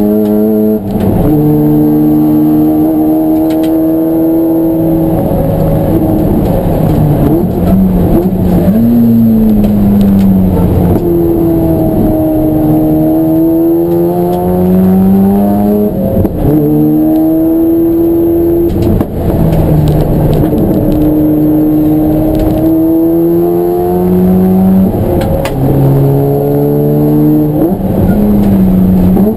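Race car engine running hard, its pitch climbing and falling over and over with a few abrupt breaks, as it accelerates and slows around a circuit.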